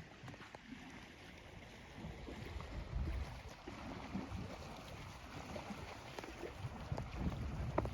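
Wind buffeting the microphone in uneven low rumbles over a steady outdoor hiss, with a couple of faint clicks near the end.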